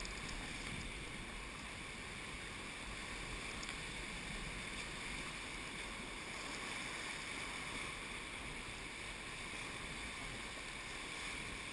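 Steady rush of fast, muddy river water moving around a paddle raft, an even wash with no distinct splashes.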